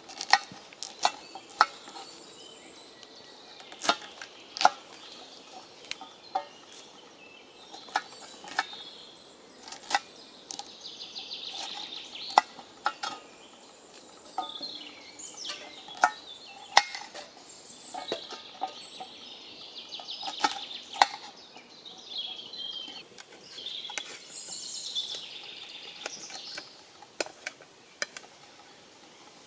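Knife cutting carrots on a ridged grill pan: irregular sharp knocks of the blade striking the pan, with stretches of scraping as the blade shaves along the carrot.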